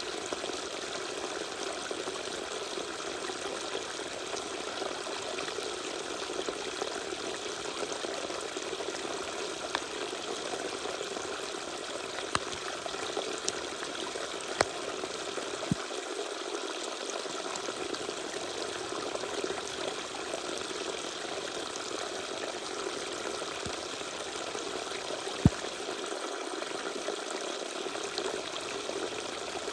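Small waterfall pouring and splashing steadily, with a few sharp ticks now and then, one louder near the end.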